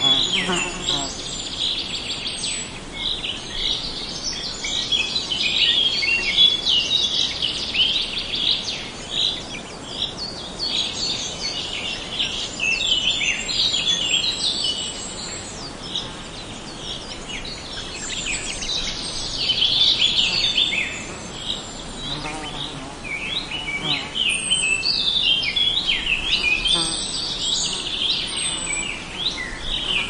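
A dense chorus of many birds chirping and twittering, a near-continuous run of short high notes, with now and then a thin, high, falling whistle above them.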